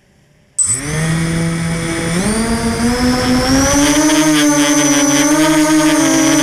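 QAV250 quadcopter's four brushless motors starting up suddenly under a second in, heard from the onboard camera: a loud multi-pitched whine that rises about two seconds in, then holds steady with slight wavering as the motors idle up before takeoff.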